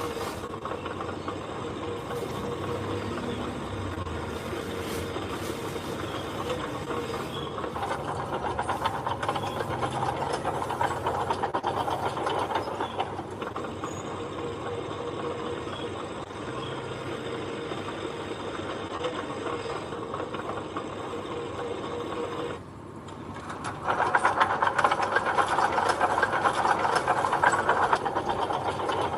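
Heavy earth-moving machine running with a dense mechanical clatter. It grows louder about eight seconds in, eases back, dips briefly, then runs louder again near the end.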